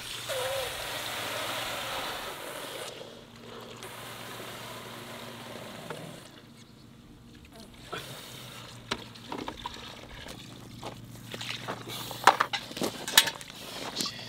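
Old farm diesel spraying and gushing under pressure from a barrel's opening into a bucket: a loud hiss for the first few seconds, then a quieter steady pour. A few sharp knocks near the end.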